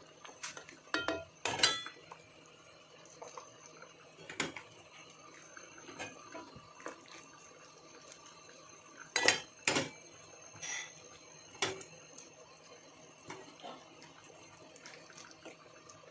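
Cooking utensils knocking and scraping against a stainless steel pan of simmering fish broth: scattered clinks, the loudest about one and a half seconds in and again about nine seconds in.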